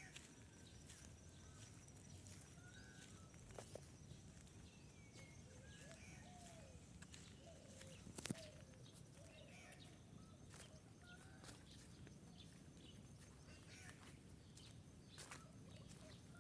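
Faint bird calls: short chirps and arching notes scattered throughout, with a few light clicks, one sharper about eight seconds in.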